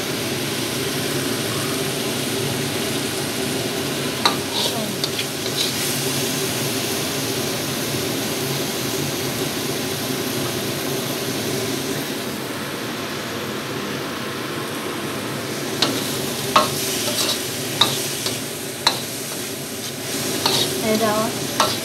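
Tofu, leeks and pork stir-frying in a wok: a steady sizzle, with a spatula scraping and clicking against the wok in clusters about four to six seconds in and again from about sixteen seconds on.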